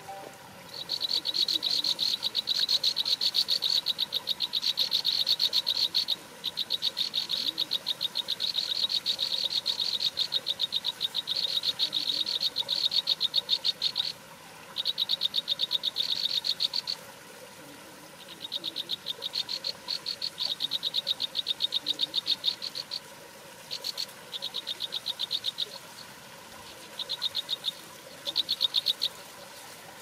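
An animal's rapid, high-pitched pulsed trill, repeated in bouts of several seconds with short breaks between them. The bouts grow shorter and more spaced out in the last third.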